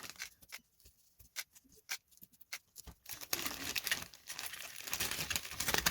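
Small clicks and taps of balsa parts and pins being handled, then a couple of seconds of continuous crinkling and rustling from about halfway in, as the laminated balsa tailplane tip is freed and lifted off the covered building plan.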